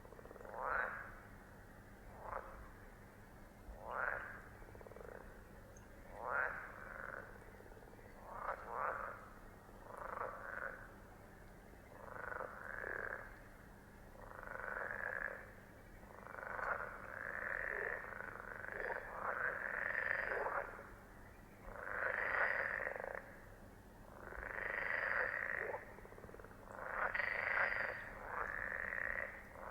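Frogs croaking. The calls come as short separate croaks a second or two apart at first, then grow longer, louder and more overlapping, almost unbroken in the later part.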